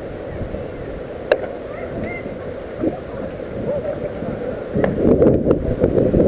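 Wind buffeting the microphone, a rumbling noise that gets louder near the end, with a single sharp click about a second in.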